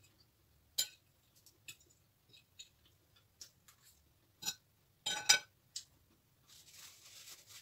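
Metal cutlery clicking and clinking against a plate and dishes in scattered single taps while eating, with a louder cluster of clinks about five seconds in. A soft rustling hiss follows near the end.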